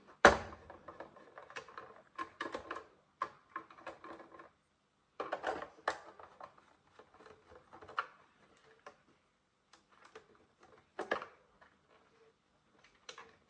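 Hand screwdriver backing small screws out of a Roomba i3's plastic cover: irregular clicks, ticks and scrapes in short clusters, the loudest click just after the start, with the loosened screws handled and picked out.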